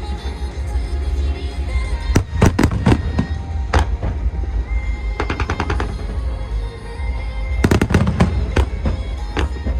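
Fireworks bursting over a pop song played with the show: clusters of sharp bangs about two to three seconds in and again near the end, with a run of rapid crackles in the middle, over a constant low rumble.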